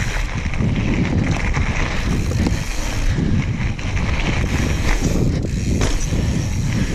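Wind buffeting the microphone over the steady rumble and rattle of a mountain bike rolling down a dirt trail.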